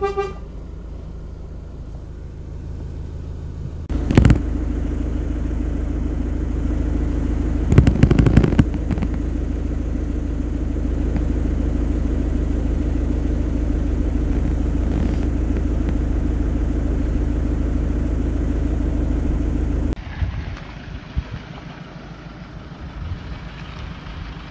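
Iveco truck's engine running steadily, louder from about four seconds in, with a few sharp knocks around four and eight seconds. About twenty seconds in it drops away abruptly to quieter, uneven noise.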